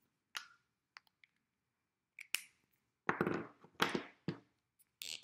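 Handling noises: a few short, sharp clicks, then louder brief rustles from about three seconds in and again near the end.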